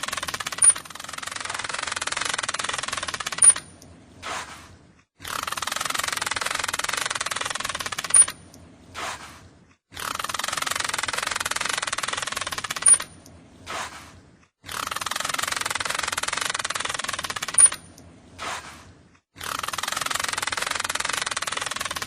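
Dolphin sound-effect recording repeating about every five seconds. Each pass is about three seconds of dense rushing noise with faint wavering whistles, ending in a sharp click and then two short fainter bursts.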